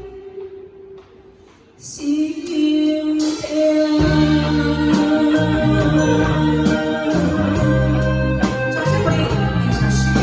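A woman singing a song with a backing accompaniment. The music dips almost away at first, a long held note comes in about two seconds in, and the full backing with bass and guitar returns about two seconds later.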